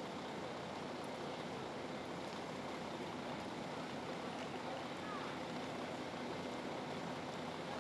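Steady ambient din of a busy ferry quay: an even noise bed with a low, constant engine-like hum, and faint voices of passengers walking past.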